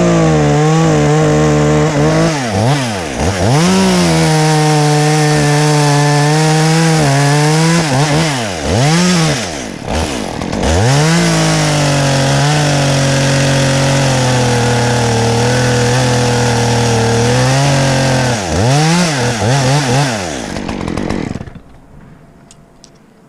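Two-stroke chainsaw running at high revs and cutting wood, its pitch swooping down and back up several times as the throttle is let off and squeezed again, and sitting lower for a stretch midway under load. It runs down and stops about 21 seconds in.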